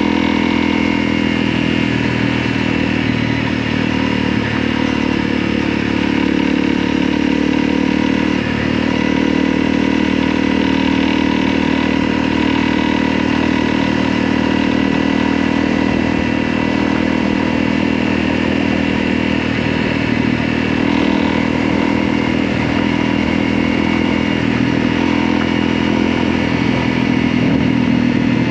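Motorcycle engine running steadily at a near-constant pitch while riding, with road and wind noise.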